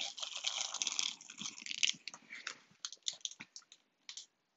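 Close rustling and crackling handling noise with many small clicks, dense for about the first two seconds, then thinning to scattered clicks and fading out near the end.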